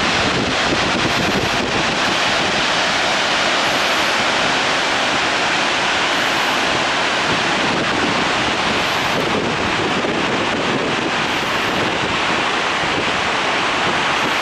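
Floodwater discharge from the Kawaji arch dam's outlets: a steady, loud rush of falling and spraying water, with the river swollen by typhoon rain.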